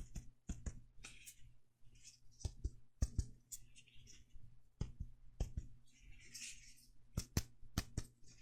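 Fingers tapping, as in mediate chest percussion of the lungs at the subclavian fossae. The taps are sharp, irregular and often come in quick pairs.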